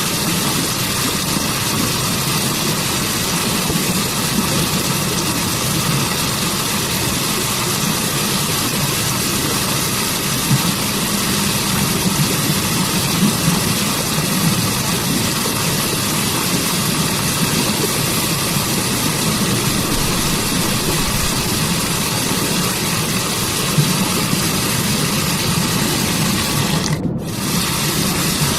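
Waterfall and stream water rushing steadily, an even hiss with a low rumble under it. The hiss drops out for a moment near the end.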